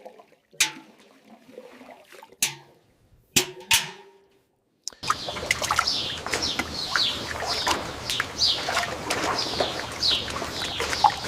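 A few sharp knocks in the first half. After an abrupt cut about five seconds in, birds chirp over a steady hiss, short falling chirps repeating about twice a second.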